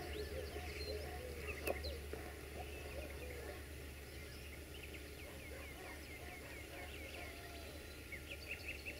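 Low, steady engine hum of a departing orange diesel-hydraulic (LDH) locomotive, slowly fading, with small birds chirping in quick runs in the middle and again near the end. A single sharp click about two seconds in.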